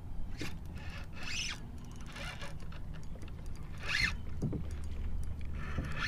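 Fishing reel rasping in about five short bursts while a hooked fish bends the rod; the loudest burst comes about two-thirds of the way through. A steady low rumble of wind and water lies underneath.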